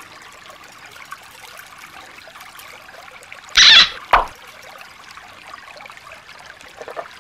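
Shallow stream trickling steadily over stones. About three and a half seconds in there is a short, loud sound that falls in pitch, followed by a thump.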